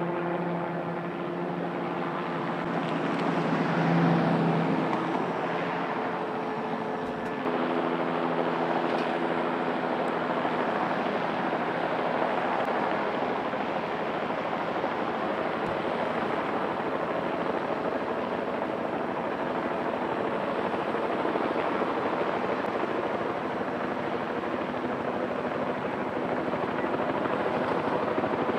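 Light turbine helicopter running steadily. About seven seconds in, the sound jumps up abruptly and becomes a more even, louder rush.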